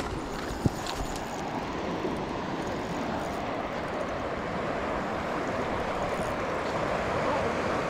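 Steady rush of fast-flowing water in a concrete aqueduct channel, with a single sharp click about half a second in.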